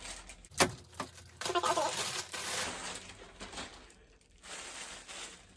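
Thin plastic bag crinkling and rustling as it is handled and the wig is taken out, with a sharp crackle about half a second in.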